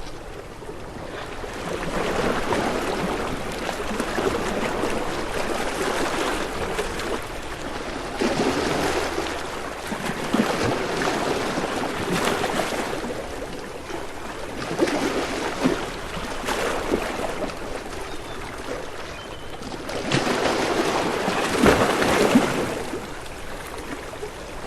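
Ocean waves washing ashore, the surf swelling and falling back every few seconds, with the biggest surge near the end.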